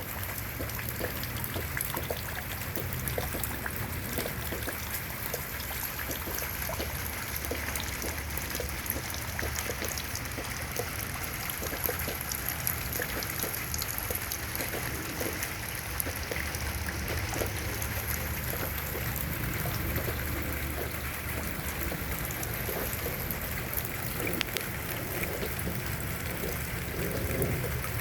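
Steady rain in a desert garden: an even hiss of rainfall with many scattered single drops landing as small ticks.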